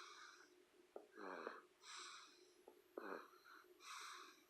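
Quiet snoring in quick breaths, about one every two seconds: each is a short wheezy snore falling in pitch, followed by a breathy hiss.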